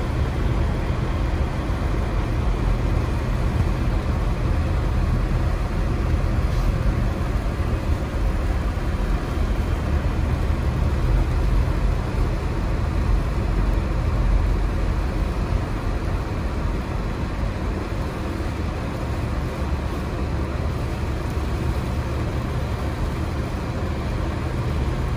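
Steady low rumble of a car being driven, heard from inside the cabin: engine and tyres rolling over a snow-covered road.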